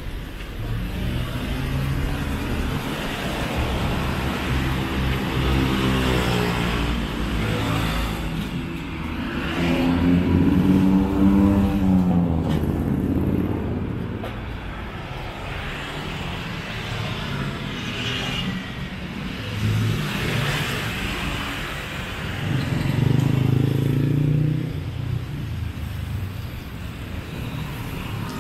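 City street traffic passing close by: cars and motor scooters driving past, their engine notes rising and falling as each one goes by, loudest about a third of the way in.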